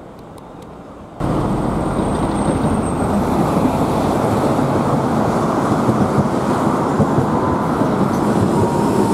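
Loud, steady rumble of road vehicles at street level, starting abruptly about a second in.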